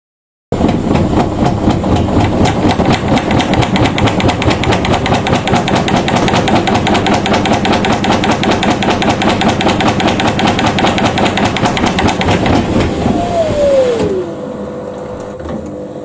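Front-loading washing machine spinning fast, loud with rapid rattling knocks. About 13 seconds in the motor whines down in pitch as the spin slows, leaving a quieter steady hum.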